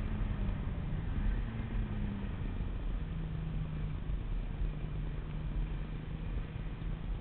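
Nissan Skyline Tommykaira's engine running on track, its note stepping down in pitch about three seconds in and then holding steady, over a heavy low rumble.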